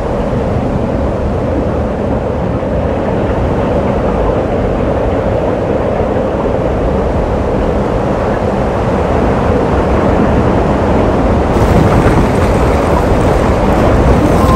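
Strong wind buffeting the microphone over choppy water: a steady rushing rumble that slowly grows louder.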